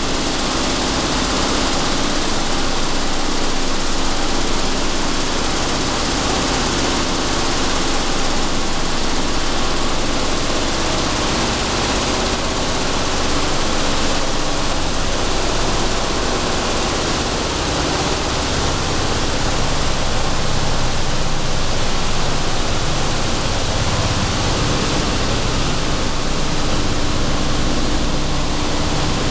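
Sunflower seed cleaning and dehulling machinery running: a steady, even din of machine noise with a low hum through it.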